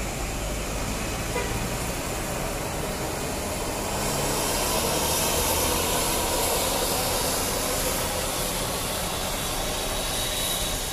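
Intercity coach bus's diesel engine pulling away and driving off. A steady engine and road noise that grows louder about four seconds in and eases a little near the end.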